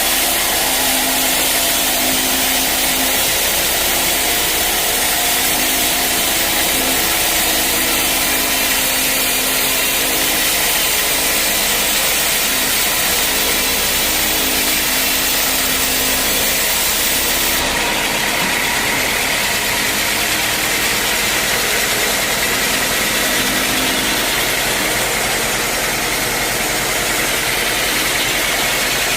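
Sawmill saw and its engine running steadily while sawing teak wood. The high hiss changes abruptly about two-thirds of the way through.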